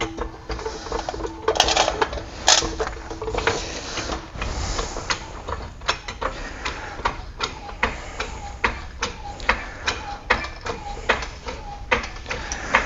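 Hand ratchet wrench clicking in short strokes, a string of sharp metallic clicks at about two a second, as the tie rod end's castle nut is run down.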